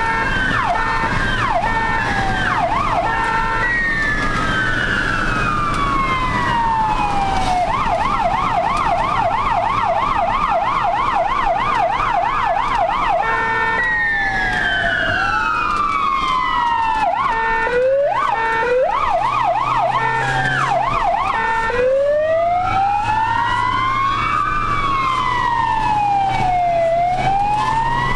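Ambulance siren heard from inside the cab while driving on an emergency call, switching patterns: short quick sweeps and stepped tones, long slow falling and rising wails, and a fast warble from about eight to thirteen seconds in. The vehicle's engine drones steadily underneath.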